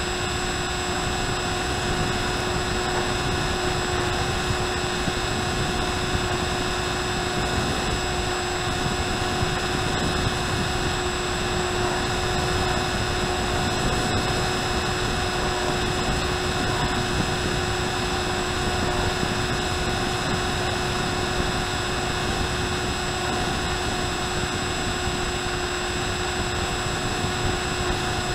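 Electric motor and propeller of an RMRC Penguin FPV plane running at a steady cruise, heard from the onboard camera: a constant whine of several fixed tones over steady wind rush.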